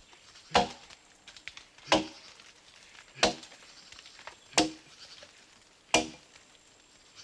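Axe chopping into a standing tree trunk: five steady, evenly spaced blows, about one every second and a third, each a sharp woody thunk with a short ring.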